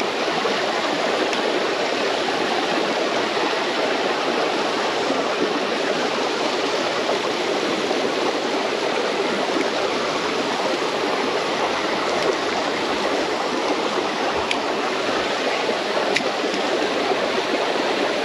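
Steady rush of water flowing in a small ditch, an even unbroken hiss.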